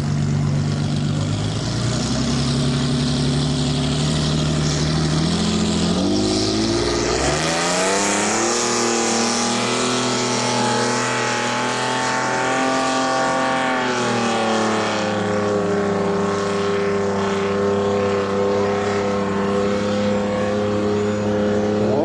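Straight-piped 8.2-litre Lamborghini V12 of a racing RIB catamaran under hard acceleration, very loud. The engine note climbs in steps, rises steeply about six to eight seconds in and holds high, then falls about fourteen seconds in to a steady lower note at speed.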